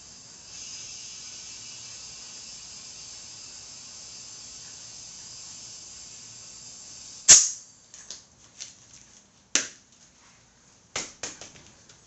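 Compressed air hissing steadily into a motorcycle tire being inflated, then a loud sharp pop about seven seconds in as the tire's bead snaps onto the rim, and the hiss stops. A few fainter snaps follow.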